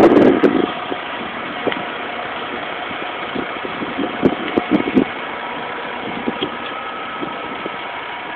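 Mitsubishi pickup's engine idling steadily, with a brief louder rush at the very start and a few light knocks between about three and five seconds in.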